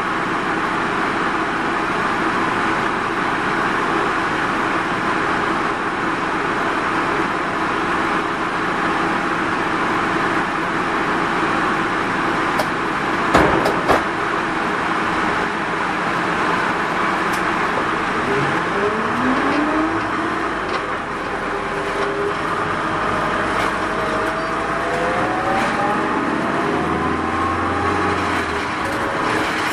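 Mitsubishi Fuso Rosa minibus running, heard from inside the cabin: steady engine and road noise with a couple of knocks about 13 seconds in. From about 18 seconds a whine rises in pitch, twice, as the bus picks up speed.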